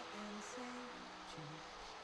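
Soft, slow background music: a melody of held notes that step from one pitch to the next, with guitar.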